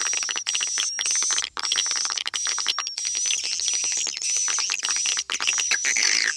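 Swiftlet lure recording, an attracting call mixed with a roosting call: dense, rapid chirping and clicking with a high steady note that recurs about every 0.6 seconds. It is the kind of sound played in swiftlet houses to draw the birds in to roost.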